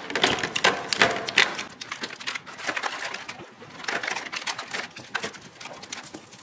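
Plastic food packages and cups clicking, knocking and rustling as they are set one after another into a clear acrylic storage bin.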